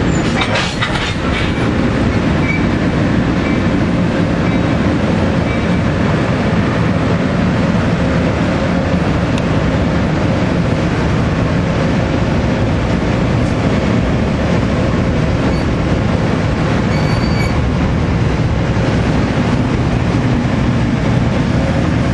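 NJ Transit passenger coaches rolling past close by, their wheels running over the rails with a steady, loud rumble.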